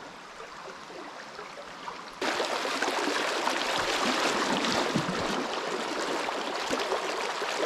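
River water rushing over a shallow riffle as a steady hiss. It is quieter at first, then jumps abruptly louder about two seconds in and holds steady.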